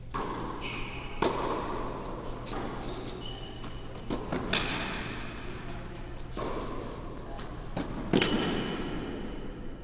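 Tennis rally on an indoor court: racket strikes and ball bounces echoing around the hall, the three loudest hits about three and a half seconds apart with fainter hits and bounces between.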